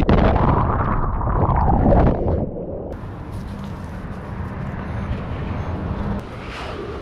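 Whitewater churning over a GoPro camera in a breaking wave: a heavy, muffled rush of water that cuts off about two and a half seconds in. After it comes a quieter outdoor background with a faint steady low hum.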